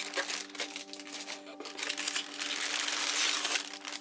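Plastic bags of model-kit parts crinkling as they are handled, densest from about two seconds in. Soft background music with steady held notes runs underneath.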